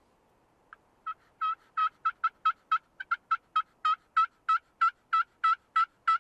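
A long run of turkey yelps: about sixteen short, evenly spaced calls at roughly three a second. They begin about a second in and break off abruptly at the end.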